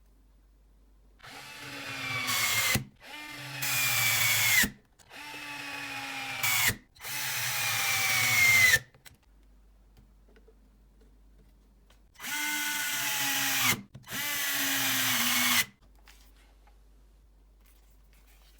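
Bosch GDS 250-LI cordless impact wrench run in six short bursts of about a second and a half each, each burst growing louder as it runs. Four bursts come in quick succession, then after a pause of about three seconds, two more.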